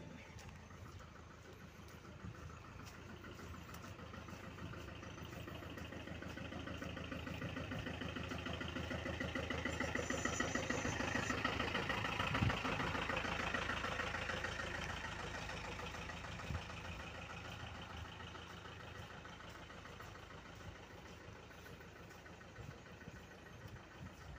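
Truck engine running, growing steadily louder to a peak about halfway through, then fading away again.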